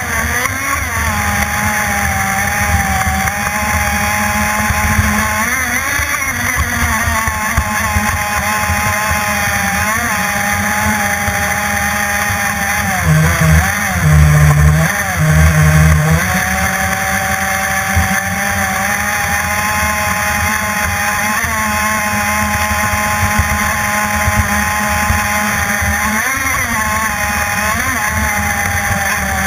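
Radio-controlled offshore race boat's CMB 91RS nitro methanol engine running flat out at a high-pitched whine. Its pitch dips and comes back up several times, over the rush of water and spray against the hull. About halfway through there is a short run of heavy low thuds.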